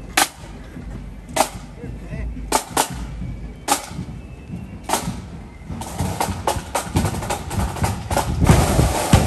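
Marching flute band's drum corps: single sharp rim clicks about every 1.2 s keep the marching time. From about six seconds in the snare drums start up and build into full snare and bass drum beating near the end.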